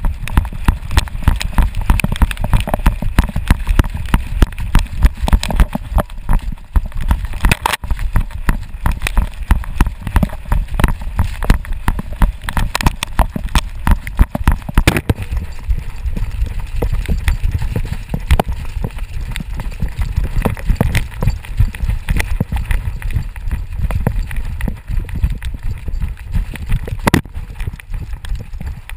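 Dog running flat out with a harness-mounted camera: a fast, rhythmic run of thumps from its strides jolting the camera, over a low rumble.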